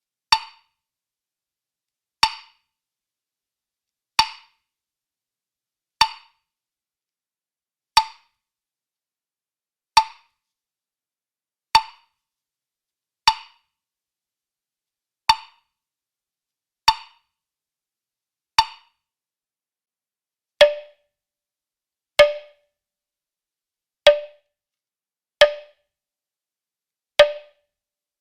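Woodblock struck one hit at a time, about every one and a half to two seconds, each a sharp dry knock that dies away quickly. About two-thirds of the way through, the hits drop to a lower pitch.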